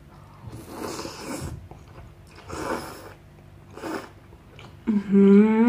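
A person slurping hot instant noodles coated in melted mozzarella, in three noisy sucks: a long one of about a second, a shorter one, then a brief one. Near the end a drawn-out hummed "mmm" begins.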